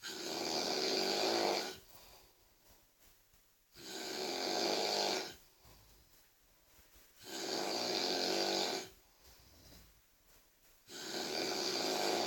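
A person snoring extremely loudly: four long snores, each about a second and a half, coming about every three and a half seconds with quieter breathing gaps between.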